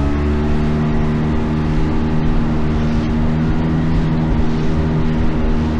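Boat engine running steadily at one speed, a constant pitched hum.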